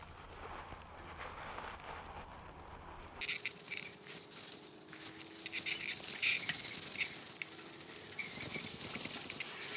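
Small metallic clicks and rattles of a wrench on the ignition coil's mounting screws as they are tightened with the coil gapped to the flywheel. A low hum underneath stops suddenly about three seconds in.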